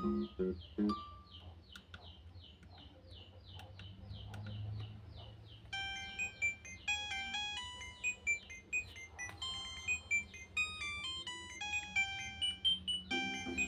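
Phone ringtones played through a Nokia 110's small speaker. For the first five seconds or so there is a fast run of high chirps, about three a second. Then a synthesized beeping melody starts, several notes at once.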